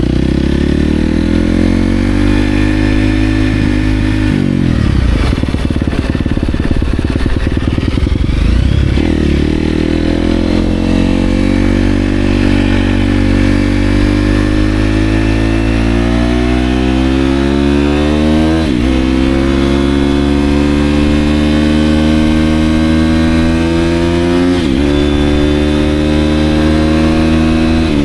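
Dirt bike engine running under way, its pitch climbing steadily as it picks up speed and dropping sharply twice in the later part as it shifts up a gear.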